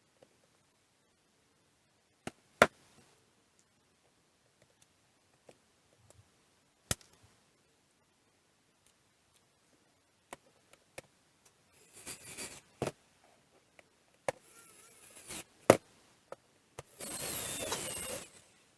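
Scattered clicks and knocks of small parts and tools being handled on a workbench, with a few short rasping, rustling bursts in the second half, the longest lasting about a second and a half near the end.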